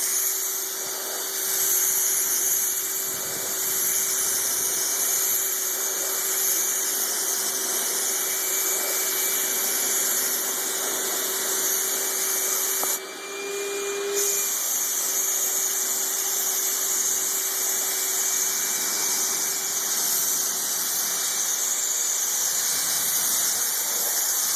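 Bodywork equipment running steadily: a strong hiss over a constant low whine. The hiss breaks off for about a second some thirteen seconds in while the whine keeps going, then resumes.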